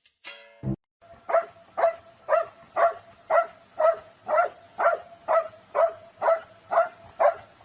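A dog barking over and over at an even pace, about two barks a second, a dozen or so alike in a row.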